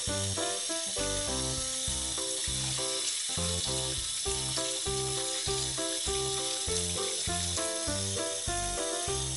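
Background music with a steady bass beat, over the hiss of a kitchen tap running into a stainless steel sink as fish fillets are rinsed under the stream.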